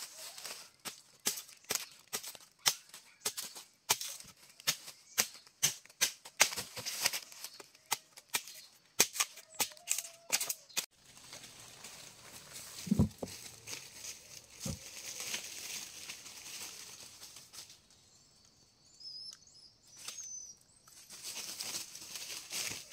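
Dry forest vegetation crackling and snapping in quick, irregular clicks for about ten seconds, then a softer, steadier rustle with a couple of dull thuds. A few high bird chirps come near the end.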